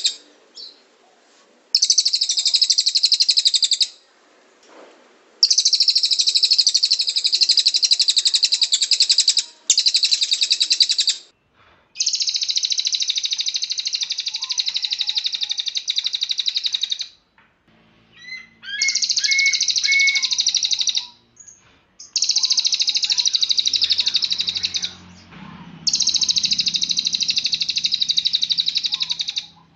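Cililin bird singing in long, dense, high-pitched bursts of a few seconds each, with short pauses between them. These are the rapid 'tembakan' phrases that keepers use in a song-tutor recording.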